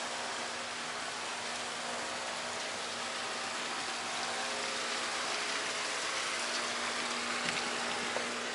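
Steady rush of running water with a low, steady hum underneath.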